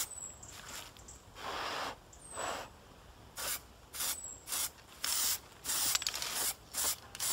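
Aerosol spray paint can hissing in a rapid series of short bursts, about a dozen, coming faster in the second half, as paint is sprayed onto a computer case.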